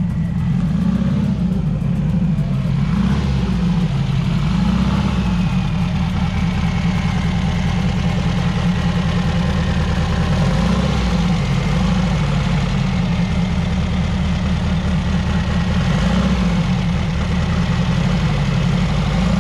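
Turbocharged VW Beetle engine idling, its pitch wavering up and down slightly every second or two.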